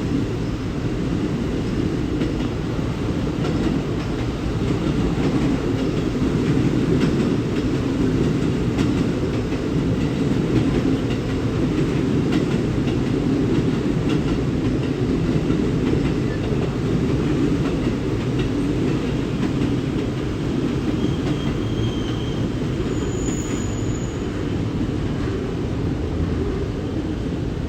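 A JR West train running along a station platform: steady rumble of wheels on rails with faint clicking, and a brief high wheel squeal near the end.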